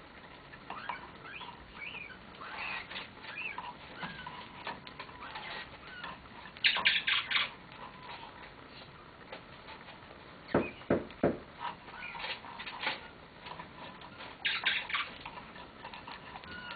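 Blue-mutation rose-ringed parakeet playing on its perch: soft little chirps and squeaks with bursts of rapid clicking as it works its beak on the branch and toys, loudest about seven and fifteen seconds in. Three loud falling sweeps come just past the middle.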